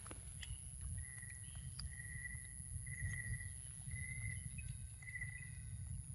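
Outdoor ambience: a steady low rumble of wind on the microphone, a thin high insect whine, and a thin mid-pitched tone that swells about once a second, with a few faint clicks as a macaque eats a green mango.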